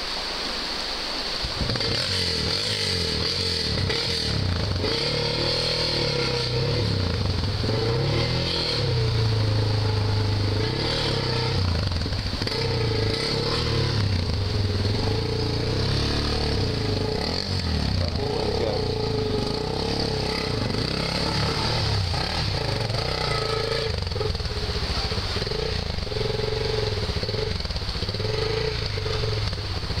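Honda XR600's single-cylinder four-stroke engine revving up and down as the dirt bike is ridden through a fast, shallow river, with rushing and splashing water under it. The engine note comes in about a second and a half in.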